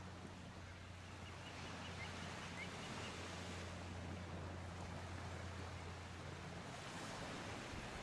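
Small waves breaking and washing gently at the shoreline, a steady soft surf, with a low steady hum underneath. A few faint, quick high bird chirps come about one to three seconds in.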